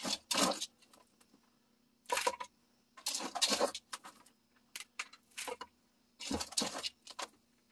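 A plastic scoop digging into and pouring gritty potting mix, potting soil mixed with coarse decomposed-granite sand, in about six short scraping, rustling bursts.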